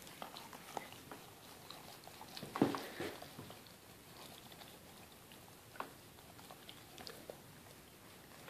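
Faint wet licking and mouthing sounds as a Siberian Husky licks a puppy's mouth and teeth: scattered small smacks and clicks, with a louder burst of smacking a little under three seconds in.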